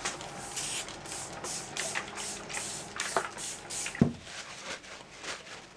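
Quick soft brushing strokes, about three a second, sweeping up the leftover sulfur powder, with one dull thump about four seconds in. The strokes grow fainter after the thump.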